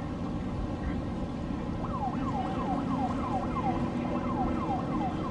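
A siren sounding a quick series of falling chirps, about three a second, beginning about two seconds in with a short break near the middle, over the steady rumble of passing motorboats and water.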